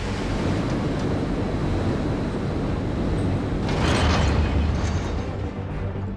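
Background music over a steady low rumble, with a noisy whoosh swelling up about four seconds in and fading away.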